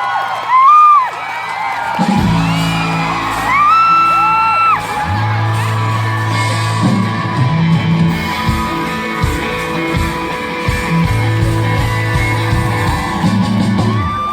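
A pop-rock band playing live on stage, with whooping voices over the music. The bass and drums come in about two seconds in and the band then plays on steadily.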